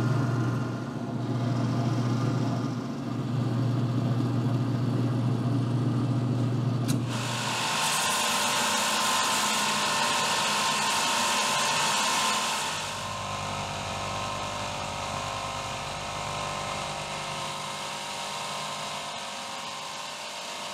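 Shop power tool machining a Delrin plastic part. A motor runs steadily with two short dips, then at about seven seconds a loud high, hissy cutting sound sets in for about five seconds. After that it runs on more quietly.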